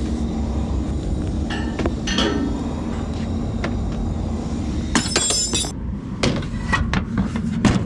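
Light metallic clinks and knocks over a steady low rumble, with a brief high jingle about five seconds in.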